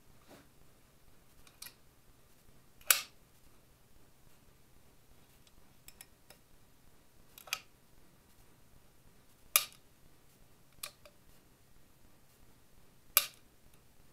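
Sharp, short clicks and knocks from a Denix replica blaster with 3D-printed parts being handled and turned over in the hands. There are about six, spaced a few seconds apart, and three are much louder than the others. A faint steady low hum sits underneath.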